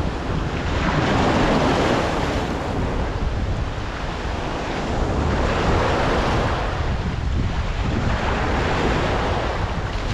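Small sea waves breaking and washing around the shoreline, the surf swelling and easing every few seconds, with wind buffeting the microphone as a steady low rumble underneath.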